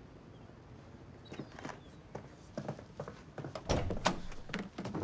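Footsteps and a few knocks and thunks from a van's side door being handled. They start about a second in, and the loudest thunks come a little after three and a half seconds in.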